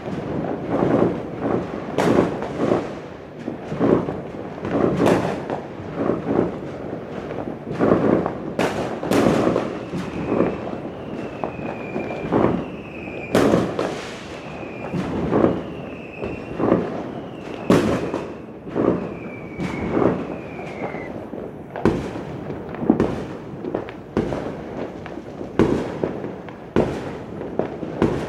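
Many fireworks and firecrackers going off together: a dense run of bangs and booms several times a second, with some sharper, louder cracks. From about ten seconds in, a short falling whistle repeats roughly once a second for about ten seconds.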